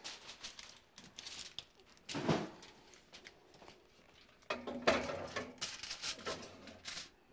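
A foil-covered baking dish being slid into an oven: a few knocks and handling sounds, then, from about four and a half seconds in, a run of clattering and scraping as the dish goes onto the oven's wire rack.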